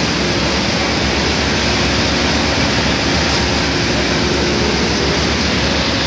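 Fishing boat's engine running steadily, a low drone under a loud, even hiss.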